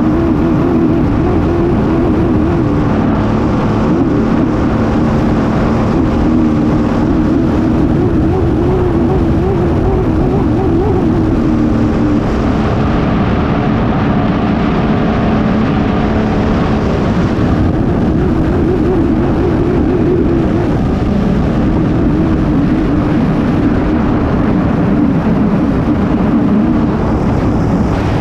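A racing hydroplane's engine runs hard at speed, heard from on board, its note wavering a little up and down. A heavy rush of wind and spray lies under it.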